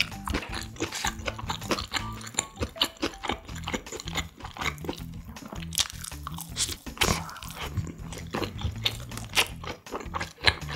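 Crunchy bites and close, wet chewing of a Korean toasted sandwich, with many small crackles, over soft background music.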